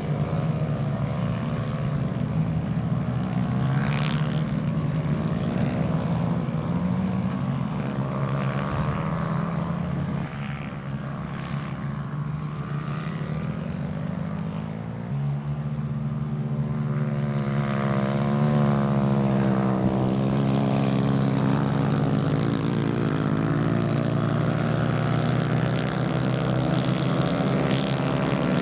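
Several small racing kart engines buzzing at race speed, their pitches rising and falling as the karts accelerate, brake and pass.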